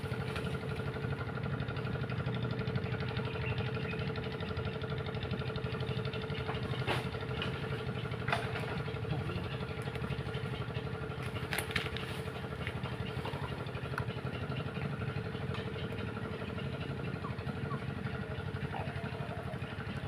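Steady engine hum at constant pitch, like a small motor running at idle, unchanging throughout. A few short sharp clicks sound over it about a third and halfway through.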